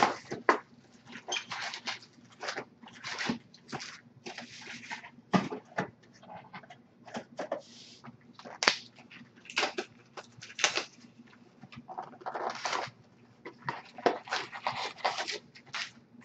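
Crinkling and rustling of plastic shrink wrap and foil trading-card packs being handled, with irregular sharp clicks and knocks of cardboard card boxes being moved and opened.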